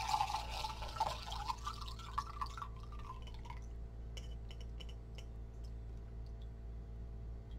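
Propolis tincture pouring from a glass jar through a mesh strainer into a glass measuring cup, a splashing trickle that thins out and stops about three and a half seconds in. After it come scattered light clicks of the glass jar against the strainer.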